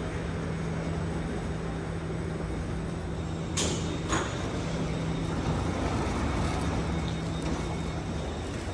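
Alstom R151 metro train at a station platform, giving off a steady low electrical hum over a general rumble. Two short sharp clicks or hisses come about three and a half and four seconds in.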